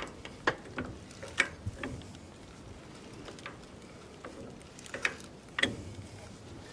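A 10-ton railroad track jack being worked by its lever handle as it lifts a shipping container. Its ratchet makes sharp metal clicks and clacks, several in the first two seconds, then a few more spaced out.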